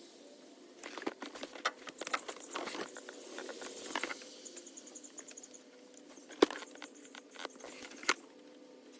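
Scattered clicks and taps of hands and tools working at the alternator's wiring connector in a truck engine bay, with two sharper knocks about six and a half and eight seconds in.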